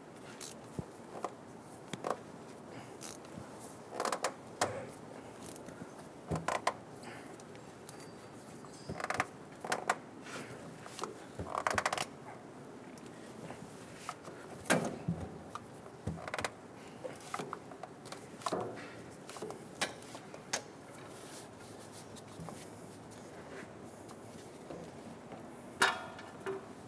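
Scattered metallic clicks, knocks and short scrapes of a filter wrench and hands working a tight spin-on engine oil filter loose on a grader's engine.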